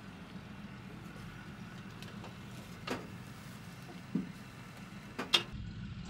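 Leopard 2 tank's V12 diesel engine idling with a steady low hum, and a few sharp knocks of metal on the hull and hatches, the loudest near the end.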